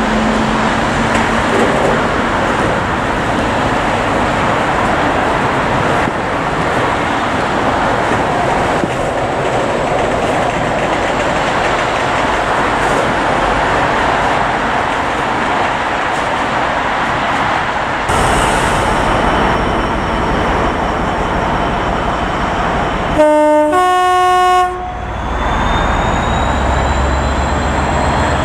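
Freight wagons rolling away along the track with a steady rumble and rattle. Later a GB Railfreight Class 66 diesel locomotive sounds its two-tone horn, a short lower note then a longer higher one, and its two-stroke diesel engine rumbles with a faint rising whine as it approaches.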